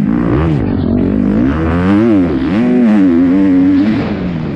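Kawasaki 250 four-stroke motocross bike engine revving up and down as the throttle is worked over the track, pitch climbing to a peak about two seconds in, dropping, holding, then falling again near the end.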